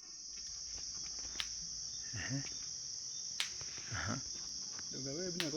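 Crickets chirring steadily in a high, even drone, with a few sharp clicks and faint distant voices.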